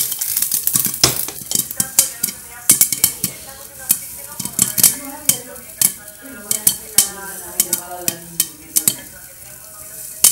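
Popcorn kernels popping in a frying pan under a glass lid: sharp irregular pops, several a second, over the sizzle of hot oil. The popping is in full swing, with the pan filling with popped corn.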